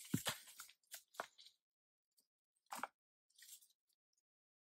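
Rock and soil crunching and scraping as loose rocks are pried out of a trailside slope with a wooden stick, in several separate bursts: a close cluster in the first second and a half, then two more near the end.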